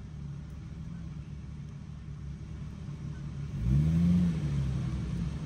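Off-road 4x4's engine running low and steady, then revved about three and a half seconds in: the pitch rises, then falls back a little, as the driver tries to back up.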